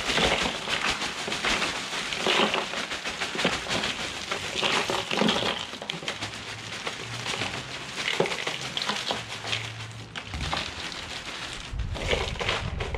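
Ice poured from a plastic bag into a plastic cooler, rattling and crackling in several surges as it lands.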